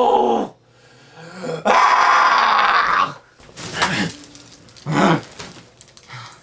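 A man's loud, drawn-out wordless cry, ending about half a second in, then a second long cry, followed by two short grunts.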